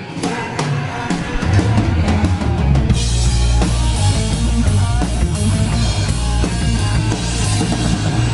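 Live rock band playing loudly with the drum kit prominent. Separate drum hits sound over a held bass for the first few seconds, then cymbals and the full band come in about three seconds in.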